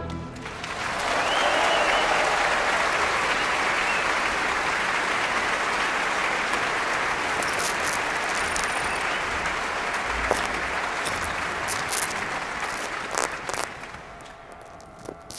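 Concert audience applauding after an orchestral piece, building up over the first couple of seconds, holding steady, then fading out near the end.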